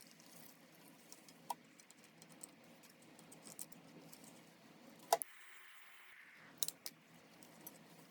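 Clip-in hair extensions being washed by hand at a sink: faint wet handling with scattered small clicks and jingles from their metal clips. The sharpest click comes about five seconds in, where a low steady background stops.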